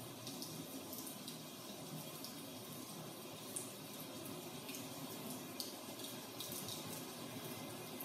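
Rain falling, with scattered close drops ticking sharply over a steady hiss and a low, even rumble.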